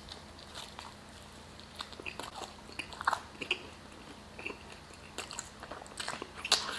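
Close-miked biting and chewing of a beef gyro in pita bread: scattered small wet clicks and crunches of mouth sounds.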